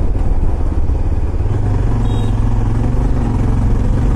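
Yezdi Adventure motorcycle's single-cylinder engine running steadily while riding along the road, with a dense low rumble throughout and a steady low drone that firms up about a second and a half in.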